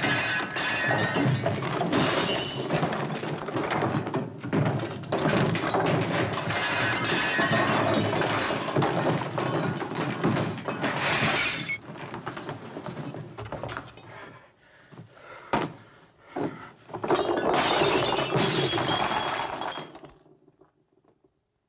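A room being smashed up by hand: furniture and objects crashing, clattering and breaking, with glass shattering. The crashing is almost continuous for about twelve seconds, thins to a few single crashes, then comes in another burst before stopping about twenty seconds in.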